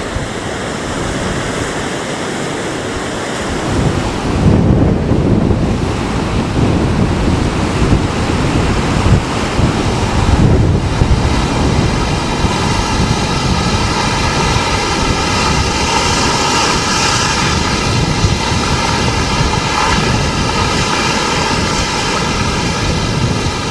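Stormy sea surf crashing, with strong wind buffeting the microphone in heavy low gusts from about four seconds in. About ten seconds in, a steady pitched hum with several tones joins and holds.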